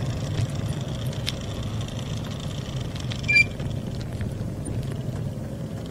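Bicycles rolling along a road: a steady low rumble of riding noise with a few light clicks, and a brief high squeak about three seconds in.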